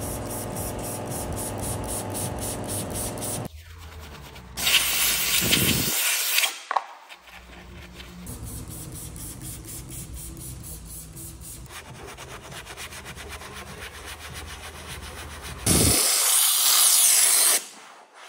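Two long hisses of cleaner sprayed onto plastic interior trim, about five seconds in and again near the end, over quieter background music.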